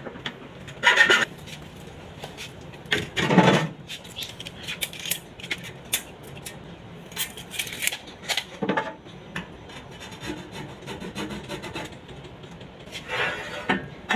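Hand work on a washing machine's damaged body: irregular scraping and rubbing strokes with small knocks and clicks, the loudest strokes about a second in, around three and a half seconds in, and near the end.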